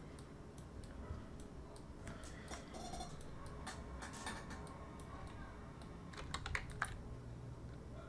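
Faint, scattered clicks of a computer keyboard and mouse, with a quick run of sharper clicks about six to seven seconds in.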